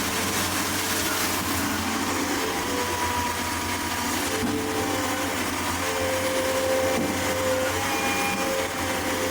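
A motor or engine running steadily, giving an even whirring drone with faint wavering tones above it.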